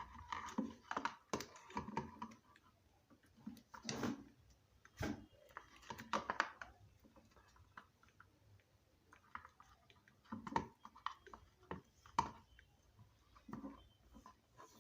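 Irregular small clicks and crackling rustles from hands working wire joints and PVC insulating tape.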